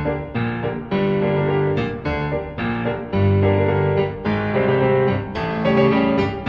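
Slow piano music: sustained chords that change about once a second.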